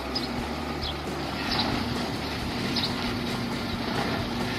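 Diesel engine of a UD concrete mixer truck running steadily at idle, a low even hum.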